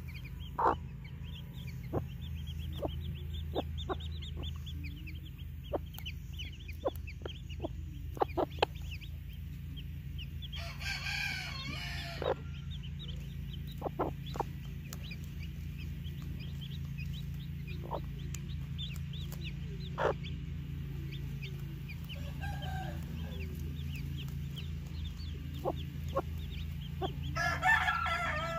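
Hmong chicken chicks peeping continually with short rising chirps while the hen gives short, low clucks. Twice a longer, louder call stands out, about ten seconds in and again near the end.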